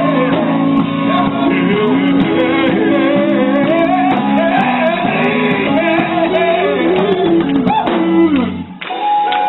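Live gospel band playing sustained chords under a singer's wavering melodic runs without clear words; the music dips briefly near the end, then comes back.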